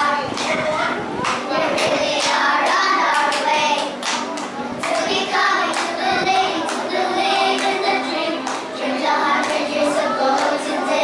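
A group of young girls singing together, with frequent sharp hand claps through the song.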